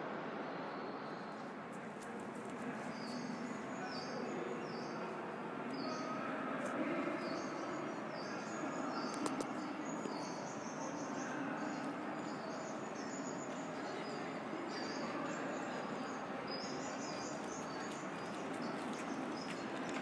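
Recorded bird calls played from hanging bird cages: short high chirps repeated one after another, starting about a second in, over a steady hum of city background noise.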